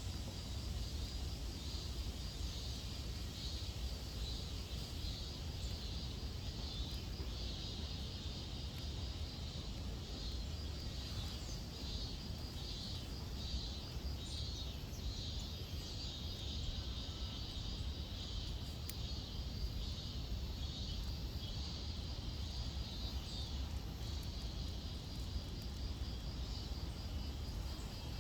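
Insects calling: a steady high-pitched buzzing chorus that pulses in places, over a low rumble of wind on the microphone.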